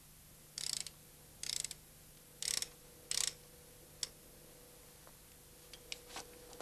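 Ratchet wrench clicking in four short bursts about a second apart, loosening the rocker-arm adjusting-screw nuts over a pump-injector unit. A single sharp click follows, then a few fainter clicks.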